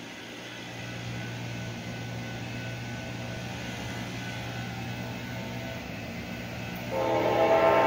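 Steady low rumble of an approaching diesel train, then about seven seconds in an Amtrak P42DC locomotive's air horn starts sounding a held chord of several notes, the loudest sound.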